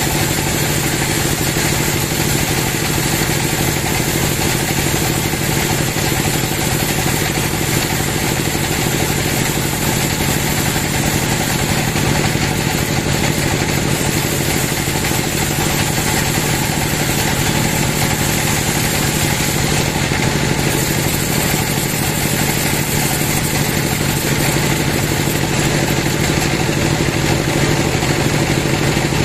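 Large sawmill band saw ripping lengthwise through a teak log: a steady machine drone from the saw and its drive, with the blade cutting throughout.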